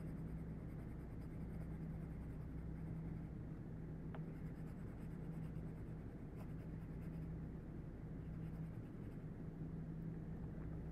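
Graphite pencil lightly shading on paper, a soft continuous scratching with light pressure for a pale value. A steady low hum runs underneath.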